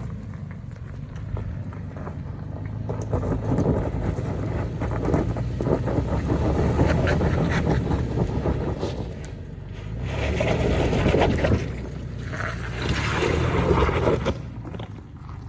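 A 2018 Toyota 4Runner TRD Off-Road driving on a rough, rocky trail: a low engine rumble with crunching and rattling as it goes over the rocks, and wind buffeting the microphone in surges.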